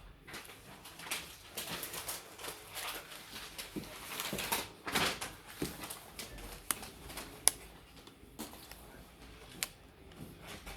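Small clicks, taps and scrapes of tools and plastic and metal tablet parts being handled during disassembly, with several sharp clicks, the loudest about seven and a half seconds in.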